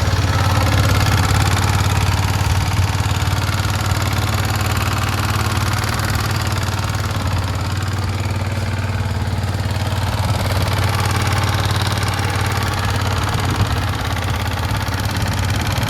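Yamaha MT-15's 155 cc single-cylinder engine idling steadily with a rocker noise from the valve gear, the sign of loose tappet and VVA rocker clearance.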